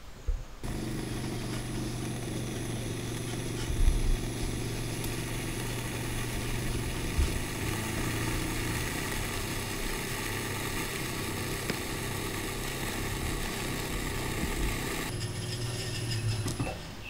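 Electric potter's wheel running with a steady motor hum and a high whine as the clay jar turns. It starts abruptly about a second in, the high whine drops out about two seconds before the end, and there are a couple of soft knocks.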